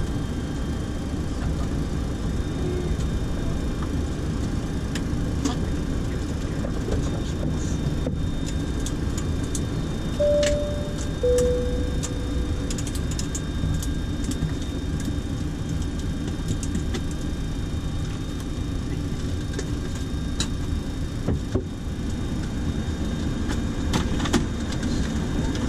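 Steady hum inside a Boeing 737-800 flight deck at the gate, with a run of switch clicks as the crew works through the shutdown procedure. About ten seconds in, a two-tone chime sounds, a high tone then a lower one.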